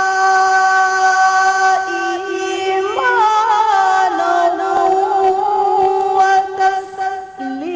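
A solo voice chanting Quran recitation with no instruments, holding long notes that step down in pitch. About three seconds in it rises into a wavering ornament, and there is a brief pause near the end.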